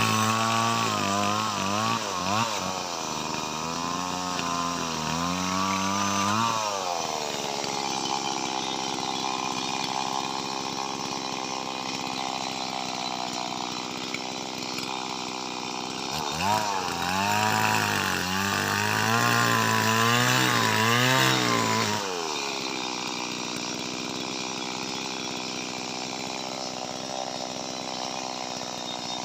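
Small Stihl MS two-stroke chainsaw cutting lamtoro wood. The engine revs up and down in the first seconds and again about two-thirds through, and holds at high revs in the long stretches between. It falls back right at the end.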